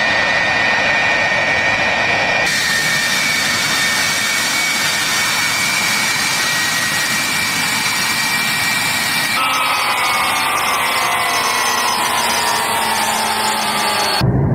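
Su-35S fighter's twin turbofan jet engines running loudly with a steady high whine over the rushing noise; in the last few seconds several whine tones slide down in pitch.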